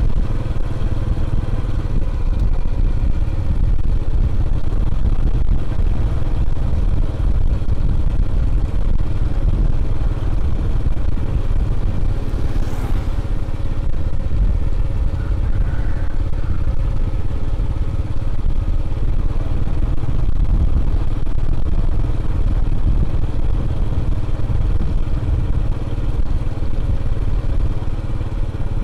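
A vehicle engine running steadily on the move, under a heavy, steady low rumble.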